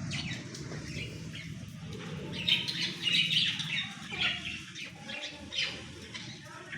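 Pet parrot making a run of short squawks and chattering calls, loudest about halfway through, over a low steady hum.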